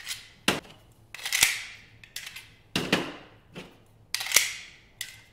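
A magazine is slapped into and dropped out of a Rock Island Armory 1911 TAC Ultra HC pistol's flared magwell again and again. This gives a quick run of about ten sharp metal clacks, some with a bright ring.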